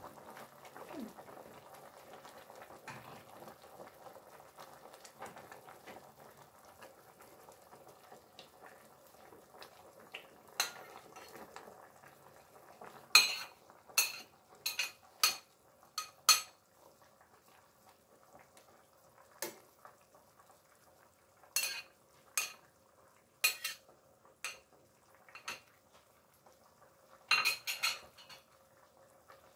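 Sharp taps, knocks and scrapes of a slotted spatula and plastic chopping board against a steel cooking pot as chopped vegetables are scraped in. They come in short clusters through the second half, after a faint steady background at the start.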